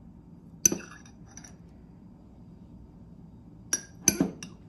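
Metal fork clinking against a glass jar: one sharp, ringing clink just under a second in, then a quick run of about four clinks near the end.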